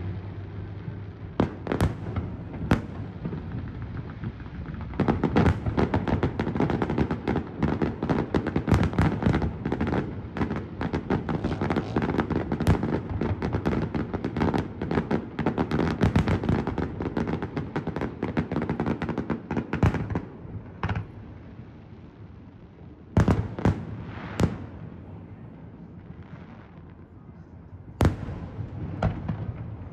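Aerial fireworks bursting. There are a few separate bangs at first, then a dense run of rapid bangs and crackle for about fifteen seconds, thinning to a handful of single bangs a few seconds apart near the end.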